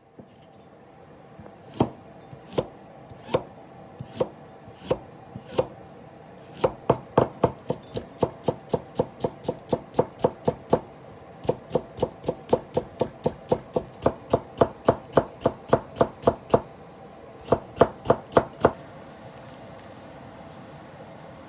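Kitchen knife chopping burdock root on a wooden cutting board. The blade knocks against the board, first in slow single cuts about one a second, then in quick runs of about four strokes a second. The chopping stops near the end, leaving a faint steady hiss.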